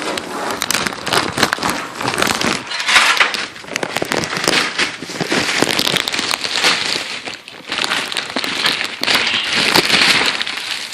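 Packing material crackling and crinkling as it is handled and pulled off a new PC case, with a dense run of sharp crackles and rustles.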